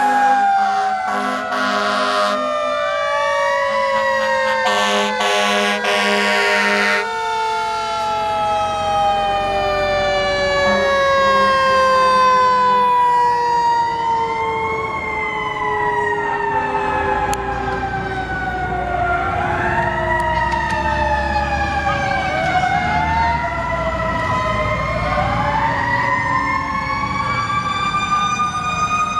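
Fire truck sirens: one siren winds down in a long, slow fall in pitch while another wails in repeated rising-and-falling cycles, getting stronger toward the end. A horn sounds twice in the first several seconds.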